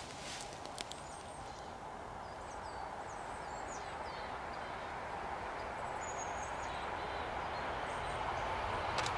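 ES2G Lastochka electric multiple unit approaching from a distance on the rails, its running noise growing steadily louder. Small birds chirp in the middle.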